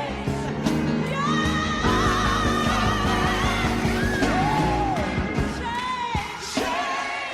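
Gospel song: a singer holding long, wavering notes over an instrumental backing with a steady low bass.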